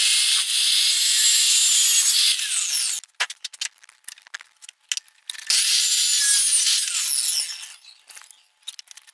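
A thin wooden strip rubbed by hand against a flat steel file, in two long strokes of a few seconds each, with light knocks and taps between them.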